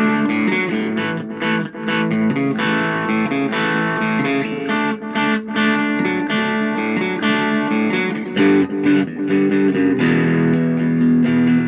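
Fender Telecaster electric guitar played through a Boss Katana Mini amplifier, with a little gain and a touch of delay: continuous strummed chords and picked notes.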